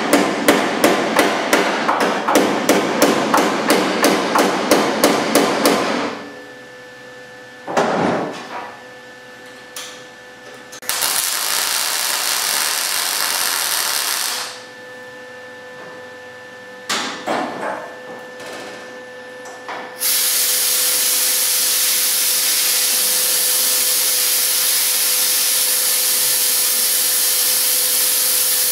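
Rapid, even tapping on sheet metal, about four blows a second, that stops about six seconds in. After a couple of knocks, a MIG welder's arc crackles in a burst of about three and a half seconds on the car's body panel. From about twenty seconds in, a steady hiss follows.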